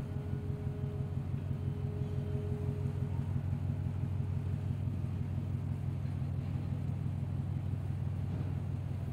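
Low, steady engine rumble of a large container ship under way, with a faint higher hum over it that fades out a few seconds in.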